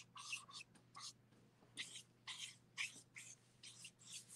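Faint scratching of an Ecoline brush pen's tip on copy paper: about a dozen quick, short colouring strokes, roughly three a second.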